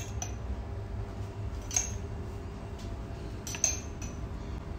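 A few light clinks of kitchenware as ghee is tipped and scraped from a small bowl over a pan of hareesa: one near the start, one a little under two seconds in, and two close together near the end. A steady low hum runs underneath.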